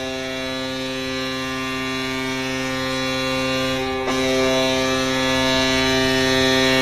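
Colorado Avalanche's NHL arena goal horn sounding: a long, steady horn blast with a brief break about four seconds in, growing slightly louder.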